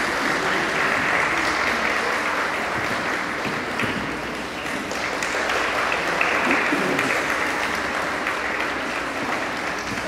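Audience applauding, the applause slowly dying down toward the end.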